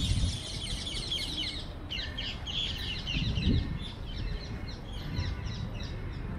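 A flock of small birds chattering in the trees: a dense run of rapid high chirps that breaks off briefly about two seconds in, then resumes and thins out near the end, over a low background rumble.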